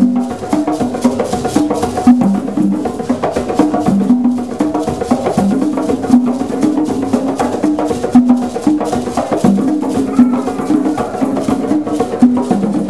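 A group of East African hand drums played live together in a fast, driving rhythm: quick sharp strokes over deeper drum tones that repeat in a steady pattern.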